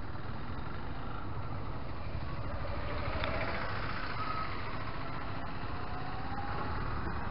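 A motorcycle engine idling steadily close by, with road traffic around it.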